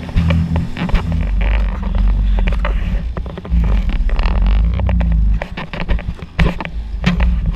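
Jet ski running at speed on open water: a steady low engine rumble under wind buffeting the microphone and water slapping against the hull in frequent short knocks.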